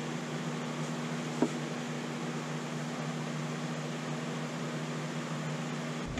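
Steady mechanical hum with a low two-note drone and an even hiss, from a fan or ventilation unit running in the workshop. A single sharp tap comes about a second and a half in.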